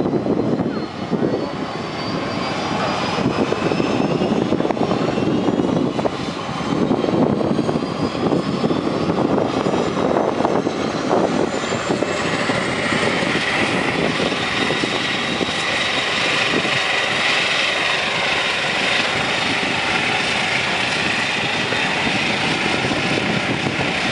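Bombardier Q400 turboprop airliner's Pratt & Whitney PW150A engines and six-bladed propellers running at taxi power as it taxis past. A high whine climbs slowly in pitch through the first half, then holds steady and grows stronger.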